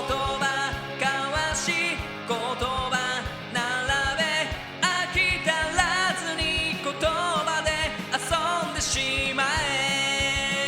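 Pop-rock song: a sung Japanese vocal line over a band backing track with a steady drum beat, ending on a long held note that slides up into it.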